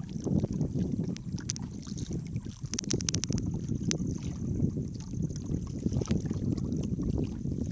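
Small wooden boat on open water: water lapping and splashing against the hull under a low wind rumble on the microphone, with a quick run of light clicks about three seconds in.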